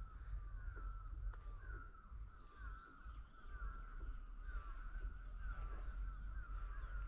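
Faint birdsong: a bird keeps repeating short warbling phrases, with a thin steady high-pitched insect whine and a low background rumble underneath.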